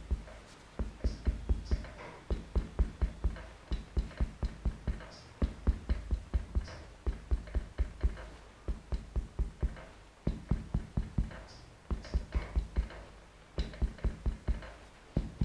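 Runs of dull, even thumps, about four a second with short breaks between runs: a bone-setter's mallet tapping on the patient's body in Chinese spinal correction.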